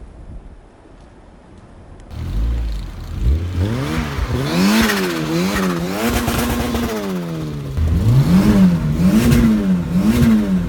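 Turbocharged Honda B20 four-cylinder engine in a Civic being revved in repeated quick blips, its pitch rising and falling several times. It comes in about two seconds in, after a stretch of wind noise.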